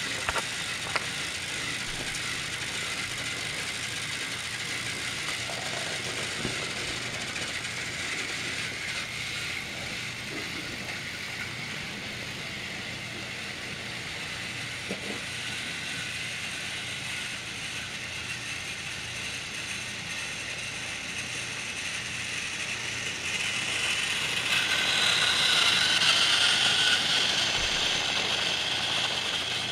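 Battery-powered Trackmaster toy train motors whirring with a gear rattle as the engines run on plastic track. There are a few sharp clicks about a second in, and the whirr grows louder for several seconds near the end as an engine runs close by.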